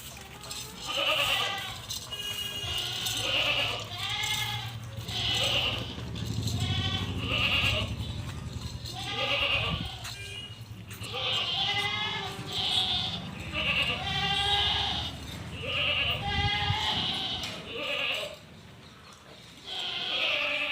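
Goats bleating over and over, a wavering call about every second, with calls at different pitches following one another.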